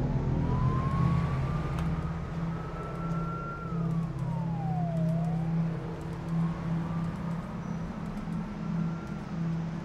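A distant siren wailing slowly up and down twice over a steady low traffic rumble.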